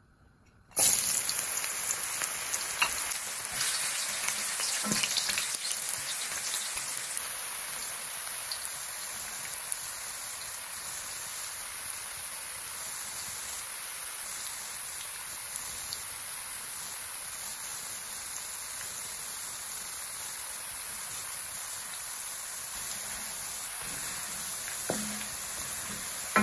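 Sweet potato sticks deep-frying in hot oil in a wok. The sizzling starts suddenly and loud as they go in, then eases over several seconds into a steady sizzle. Near the end a wooden spatula stirs them with a few light knocks.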